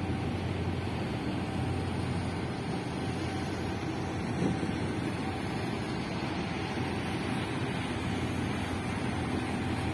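Steady low rumble of a large container ship's engine as the ship passes close by, with a brief thud about halfway through.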